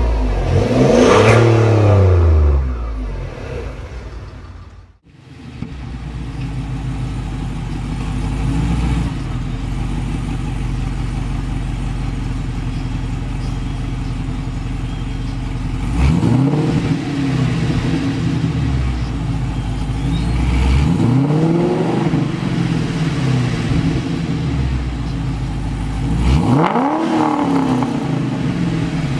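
A car engine revs up and down, then fades out about five seconds in. After that, a Cadillac CTS-V wagon's supercharged 6.2-litre V8 with a Magnaflow exhaust idles steadily and is revved briefly three times, each rev rising and falling quickly.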